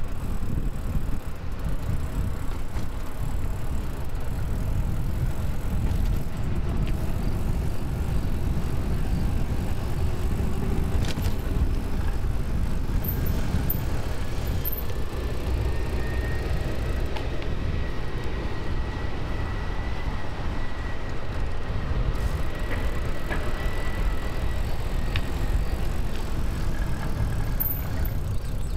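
Steady low wind rumble on the microphone with rolling noise from a bicycle ridden along a paved track. A faint high whine sounds for several seconds in the middle.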